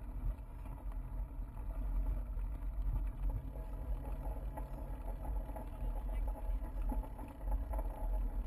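Steady low rumble of wind and rolling vibration picked up by a bike-mounted action camera as the bike rides over a dry grass and dirt trail.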